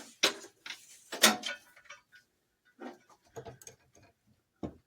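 Irregular knocks and scrapes from handling stripped wire at a bench vise, the loudest about a second in.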